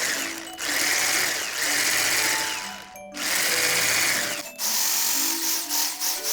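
Small electric kitchen mixer running in four bursts of about a second each, mixing soy whipping cream and pudding, with short pauses between.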